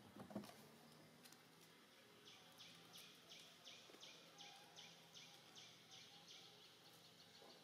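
Faint outdoor ambience with a bird calling in a steady series of short high chirps, about three a second, starting a couple of seconds in. A soft low knock comes just after the start.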